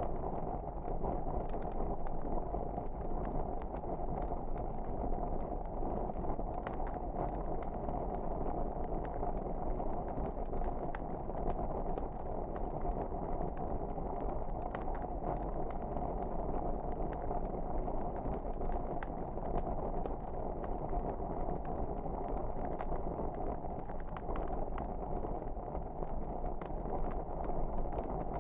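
Log fire burning: a steady low rush of flames with faint, scattered crackles and pops.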